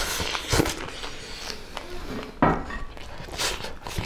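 Close-up eating sounds of people eating by hand: chewing and lip-smacking, with a few short clicks and light knocks of steel plates.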